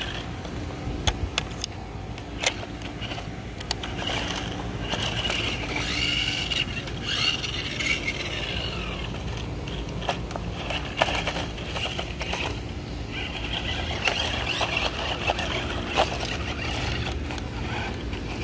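Adventure Force Trail Chaser battery-powered RC buggy's electric motor whining in repeated bursts as it drives over dirt and tree roots, its pitch rising and falling with the throttle, with scattered knocks and scrapes from the wheels and chassis striking roots and twigs.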